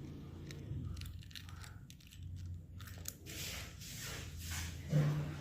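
Close handling noise of something crinkly: scattered small crackling clicks, then rustling swishes from about three seconds in.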